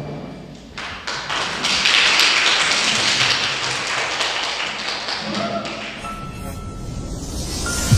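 Applause: a group clapping, starting about a second in and thinning out over the last few seconds.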